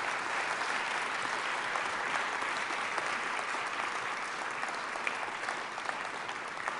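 Audience applauding, a steady round of many hands clapping at the close of a talk.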